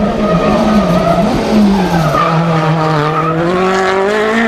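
Citroën DS3 WRC rally car's 1.6-litre turbocharged four-cylinder engine running hard. The pitch wavers, sinks about two seconds in, then climbs steadily toward the end.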